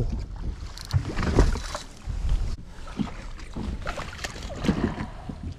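A landing net with a walleye being brought aboard a fishing boat and set on the deck: scattered knocks and handling noise over a steady low wind rumble.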